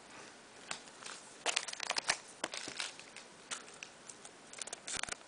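Foil booster-pack wrappers crinkling and crackling in the hands in irregular bunches, thickest in the middle and again near the end.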